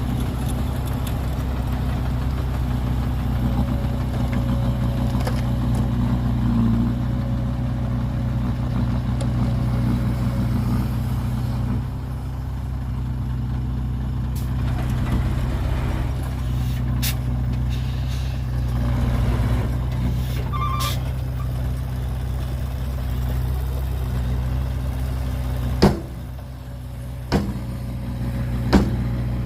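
Heavy diesel engine of earthmoving machinery running steadily, with three sharp knocks near the end.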